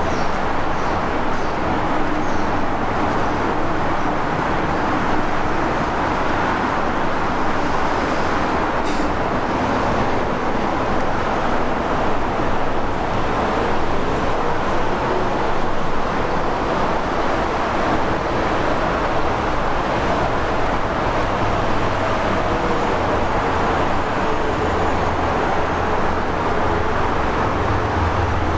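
Steady rushing noise of vehicles, with a low hum coming in during the last third.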